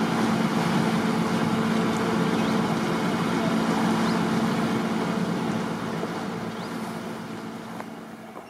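A small river ferry's engine running with a steady low hum over the rush of water. It fades away over the last three seconds.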